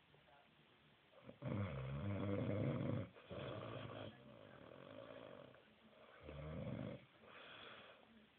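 A man snoring in his sleep: a long snore starting about a second and a half in, a softer breath after it, and a shorter snore near the end.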